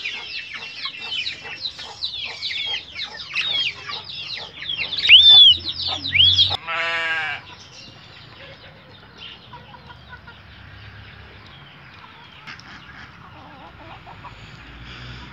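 Budgerigars chattering: a rapid run of high chirps and warbles, with a few louder calls, for about six seconds. A short wavering call follows, and then only faint sounds remain.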